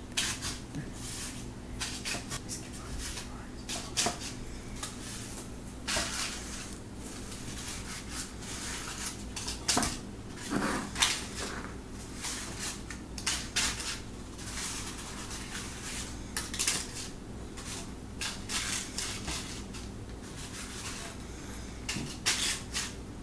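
Paper cupcake liners crinkling and rustling as they are peeled apart from a stack and set into a metal muffin tin, with light clatters from the tin; the loudest knocks come about ten to eleven seconds in.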